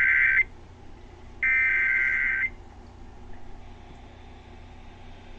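Emergency Alert System (SAME) digital header sent over NOAA Weather Radio, ahead of a severe thunderstorm warning. A harsh, buzzing data burst cuts off about half a second in, and a second identical burst runs for about a second, starting a second and a half in. After that comes faint radio hiss.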